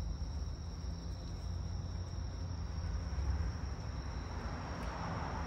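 Cloth wiping over a polished aluminium truck wheel, a soft rubbing hiss that grows louder near the end. Under it run a steady low rumble and a steady high-pitched tone.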